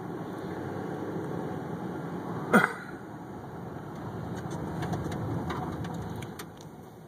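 Steady engine and road rumble heard inside a moving car, with one short, loud, sharp sound about two and a half seconds in.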